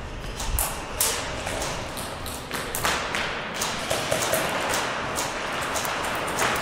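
Airsoft guns firing scattered single shots, sharp snaps at irregular intervals, the loudest about a second in, near three seconds and near the end, over a steady hiss.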